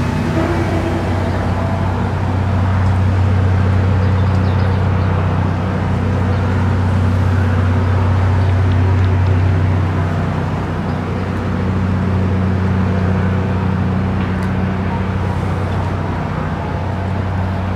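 A steady low drone from a running engine or motor, holding one pitch throughout.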